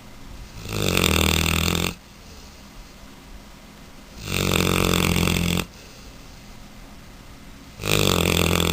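Mastiff puppy snoring: three loud snores, each a little over a second long, about three and a half seconds apart.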